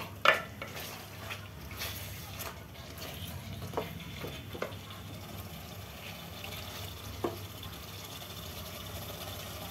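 Wooden spoon stirring thick chicken curry in an aluminium pot, the wet gravy squelching, with a few short knocks of the spoon against the pot over a steady low hum.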